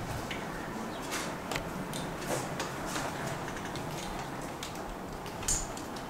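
Room noise with a steady low hum and scattered small clicks and knocks, the sharpest about five and a half seconds in.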